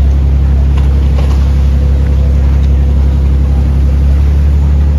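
A boat's engine running with a steady low drone, heard from on board the moving boat.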